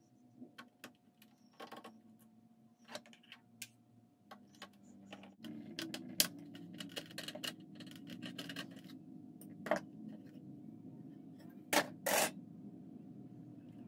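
Small metal parts being handled while a game console is taken apart: irregular clicks and taps of screws, screwdriver and the metal shield on the bench, with a few louder scrapes around six seconds and twelve seconds in, over a steady low hum.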